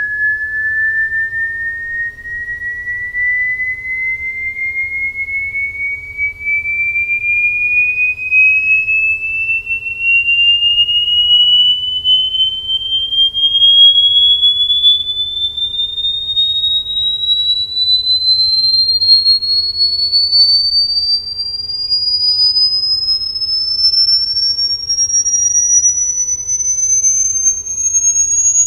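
A pure sine-wave test tone from a speaker frequency sweep, played through Chane A1.4 bookshelf speakers. It rises slowly and evenly in pitch from a high whistle to a much higher, thinner tone, and its loudness wavers a little as it climbs.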